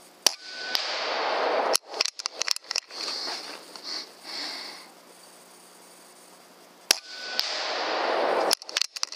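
Bigmax-X 6.35 mm air rifle firing handmade 2.9 g slugs: two shots about six and a half seconds apart. Each is a sharp crack, followed by a rising hiss that cuts off abruptly and then a string of clicks.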